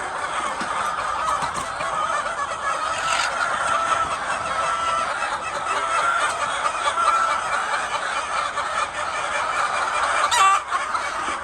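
A flock of laying hens clucking and calling together in a steady, dense chorus, with one louder, sharper call near the end.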